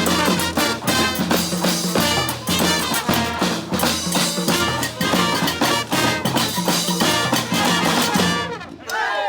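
Brass band of horns and drums playing a tune over a steady beat. The music stops a little before the end, and the crowd starts to cheer.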